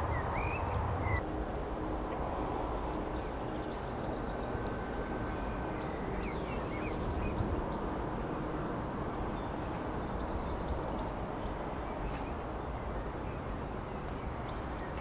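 Outdoor ambience: a steady low rumble of background noise with a few faint bird chirps now and then.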